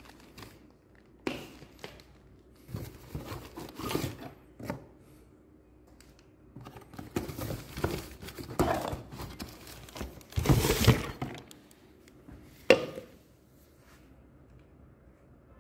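Plastic packaging bags crinkling and rustling in irregular bursts as mixer-grinder jars are handled and unwrapped, with a sharp knock late on as a jar is set down.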